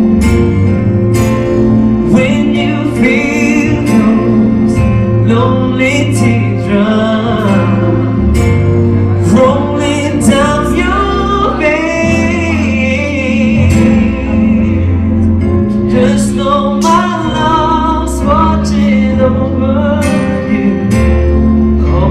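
A man singing a song into a microphone over backing music with a steady bass and beat, holding some notes with vibrato.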